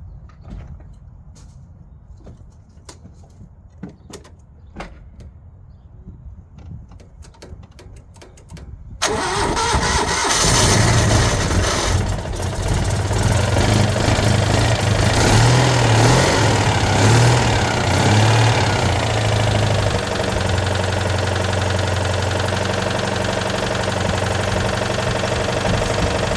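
Citroën Dyane's air-cooled flat-twin engine catching at once about nine seconds in, after several seconds of faint clicks, then running unevenly before settling to a steadier idle near twenty seconds. It starts straight away because the carburettor float bowls have just been primed with fuel, after the fuel had drained back while the car stood for three weeks.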